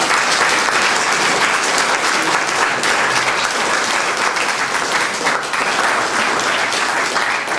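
An audience applauding: many people clapping at once, a dense, steady patter.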